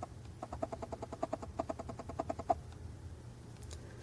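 Faint runs of short, evenly spaced chirps from a small animal, several a second, stopping about two and a half seconds in.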